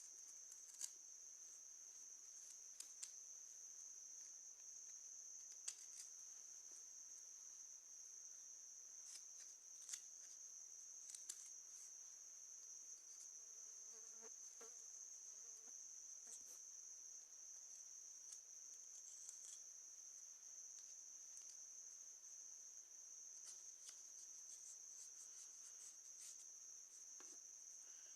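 Near silence, with a steady high-pitched whine throughout and scattered faint clicks and scratches.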